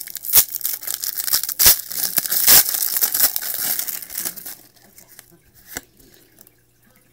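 A trading-card pack wrapper being torn open and crinkled, with the crackling and sharp snaps for about four and a half seconds, then a few quiet clicks of handling.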